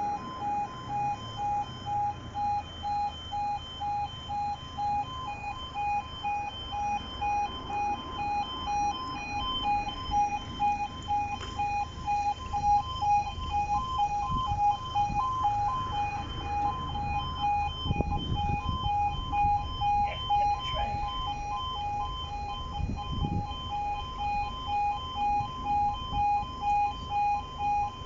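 Level crossing warning alarm sounding with the barriers down: a two-tone electronic alarm pulsing about twice a second without a break. A low rumble rises under it around the middle.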